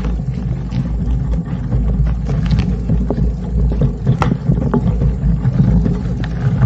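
Wind buffeting the microphone of a bike-mounted camera as a mountain bike rolls down a dirt trail, a continuous low rumble, with scattered clicks and rattles from the tyres, chain and frame over bumps.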